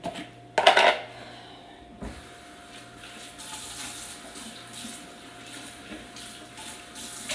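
A brief loud clatter, then a kitchen faucet starts running about two seconds in and keeps running steadily into a plastic pitcher, filling it with water for Kool-Aid.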